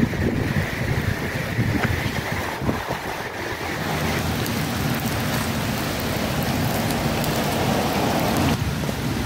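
Steady rushing noise of rain and wind buffeting the microphone.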